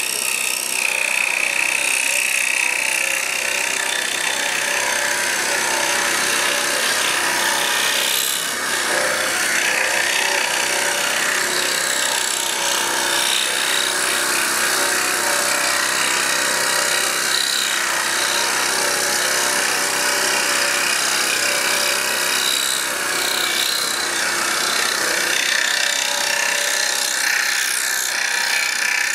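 Scroll saw running, its fine reciprocating blade cutting steadily through a thick wooden block with a continuous rasping cut over the machine's hum.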